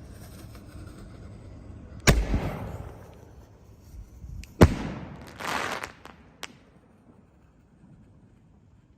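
Reloadable firework canister shells (Masters) firing from mortar tubes. A loud boom about two seconds in is followed a couple of seconds later by a louder, sharper bang, then about a second of crackling hiss and a small pop.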